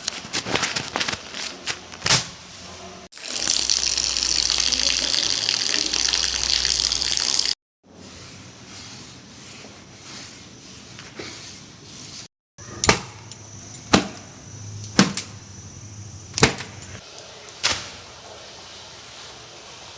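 A string of separate sound effects cut together: scraping and clicks, then about four seconds of steady loud rushing like running water that stops abruptly, a quieter stretch, and five or six sharp knocks spaced about a second apart.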